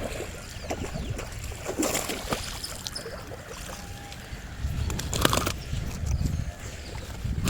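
Water sloshing and splashing over a low steady rumble, with two short splashy bursts, one about two seconds in and one about five seconds in.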